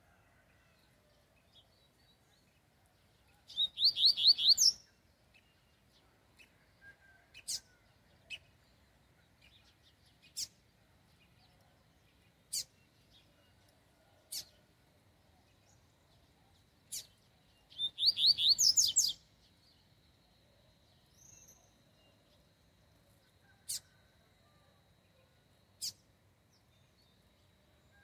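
A coleiro (double-collared seedeater) sings two short, fast phrases of rising whistled notes, about fourteen seconds apart. Single sharp chips sound every couple of seconds in between.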